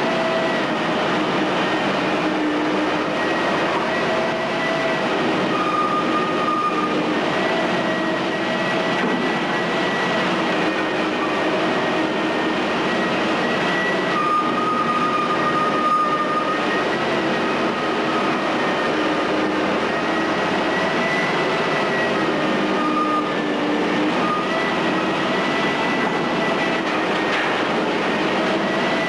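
Menck cable-operated crawler excavator working: a steady mechanical din from its diesel engine and rope winches, with high metallic squeals that come and go.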